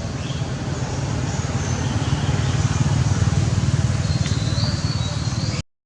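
A motor vehicle engine running steadily, with a few faint high chirps about four and a half seconds in; the sound cuts off suddenly just before the end.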